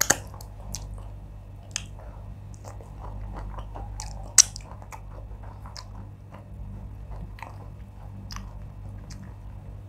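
Close-miked chewing and wet mouth sounds of a person eating wheat fufu and fish in oha soup by hand: soft smacks and sharp mouth clicks, the sharpest right at the start and about four and a half seconds in.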